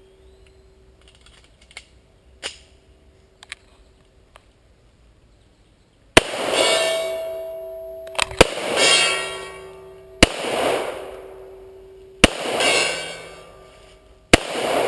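Handgun shots fired at a steel gong about 60–70 yards off: five sharp shots about two seconds apart, starting about six seconds in. Each is followed by a rolling echo, and most by the gong's clear ringing tone. Before the shots there are only a few small clicks and a faint ring.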